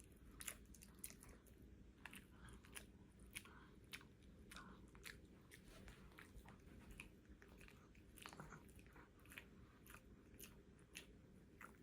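A Shih Tzu chewing a Greenies dental treat, which has gone soft and sticky: faint, irregular clicks and smacks of teeth and jaws, a few a second.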